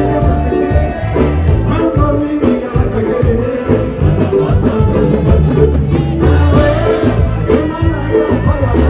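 Live band music through a concert PA: a drum kit and heavy bass keeping a steady dance beat under guitar, keyboard and hand percussion.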